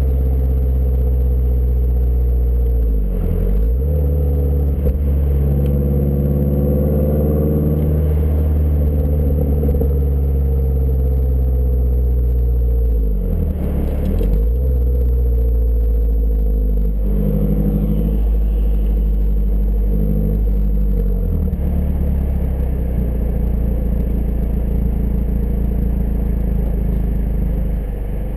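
Exhaust of a 2012 Mazdaspeed 3's turbocharged 2.3-litre four-cylinder, fitted with a CP-E downpipe and high-flow cat, while driving: the engine note rises, dips sharply and picks up again about three times as at gear changes, then holds a steady low note near the end.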